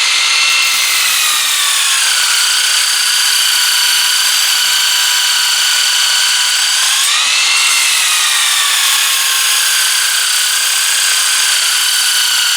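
Electric sanding tool running with abrasive paper grinding a knife blade to raise a burr. The steady motor whine shifts in pitch under load about two seconds in and again about seven seconds in.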